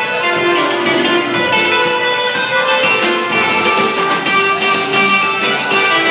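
Comorian twarab music with a steady beat.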